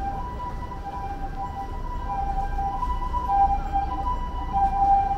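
Ambulance siren sounding the Japanese two-tone hi-lo 'pee-poh' call: a higher and a lower note alternate, each held for under a second, over a low rumble.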